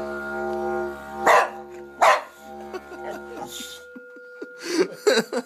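Didgeridoo drone, broken by a boxer dog barking loudly twice about a second in, then barking again near the end as the drone dies away.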